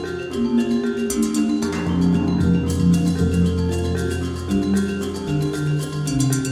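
Background music with mallet-percussion notes over a steady beat.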